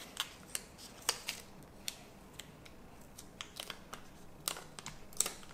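Faint, irregular small clicks and ticks as dust-removal stickers are pressed onto and peeled off a phone's glass screen, coming more often near the end.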